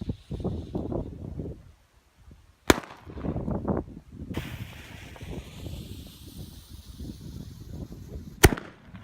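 Consumer fireworks and firecrackers going off: a rough crackling, then a sharp bang about a third of the way in and a louder bang near the end.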